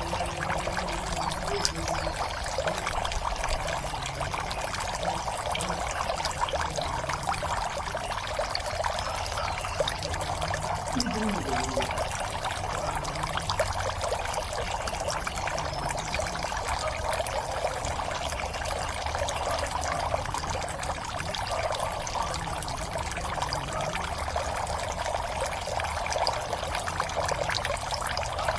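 Water falling steadily into a pond, a continuous trickling and splashing.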